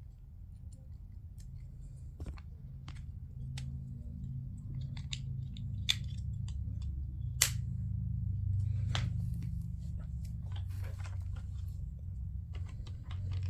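Small plastic clicks and taps from handling wireless earbuds and their charging case, scattered and irregular, with the sharpest about 2, 6, 7.5 and 9 seconds in, over a low steady hum.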